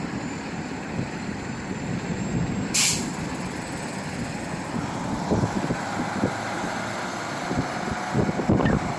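Heavy truck running at a highway weigh station, a steady low rumble, with one short sharp hiss of its air brakes about three seconds in. Irregular low thumps of wind on the microphone come in the second half.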